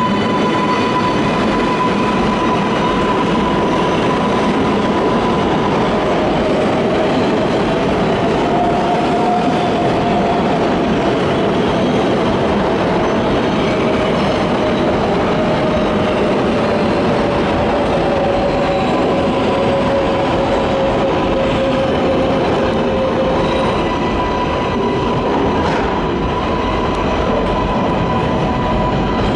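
R188 subway train pulling out of an underground station and running past: a loud, steady rumble of steel wheels on the rails with the propulsion whine on top, one high tone holding steady and a lower tone that rises and then slowly falls as the train gathers speed.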